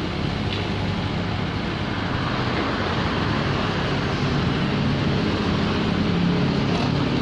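Komatsu PC78UU compact excavator's diesel engine running steadily under load while the machine works its bucket against a masonry wall.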